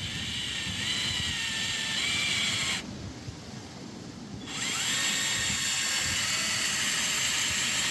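Power drill driving a screw into the wooden pillar in two runs, with a high motor whine and a pause of about a second and a half between the runs.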